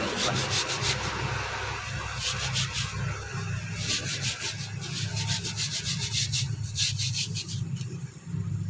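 Stiff plastic-bristled scrub brush scrubbing a wet, soapy stone in rapid back-and-forth strokes, over a steady low hum. The scrubbing stops near the end as the brush is put down.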